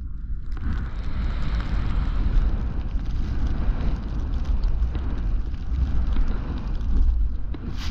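Wind buffeting a moving camera's microphone with a constant low rumble, over a steady hiss of sliding through deep powder snow on a fast descent. A single sharp knock comes just before the end.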